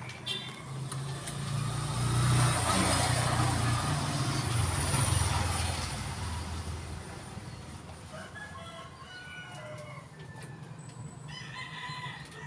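A low motor rumble that swells over a couple of seconds and fades away, then short calls from a farm fowl in the last few seconds.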